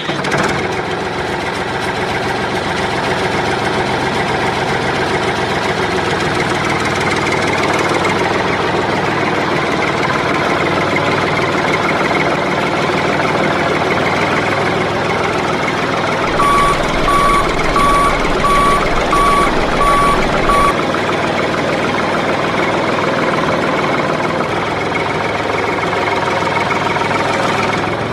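Vehicle engine running steadily. Just past the middle, a series of about seven short, evenly spaced electronic beeps sounds for about four seconds, like a reversing alarm.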